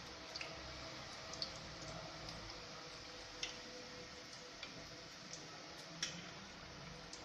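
Griwech pastries deep-frying in hot oil: a faint, steady sizzle with scattered small pops and crackles, a sharper pop about three and a half seconds in and another around six seconds.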